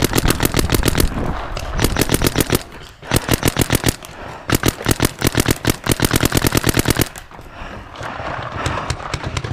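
Planet Eclipse EMF100 mag-fed paintball marker firing fast strings of shots, about ten a second, as covering fire. Four long strings come in quick succession, then only a few scattered shots near the end.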